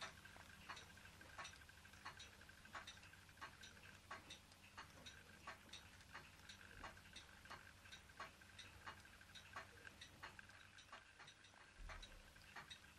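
Faint, evenly spaced mechanical ticking, about three ticks every two seconds, from a Ross Yoke low-temperature Stirling engine turning over slowly.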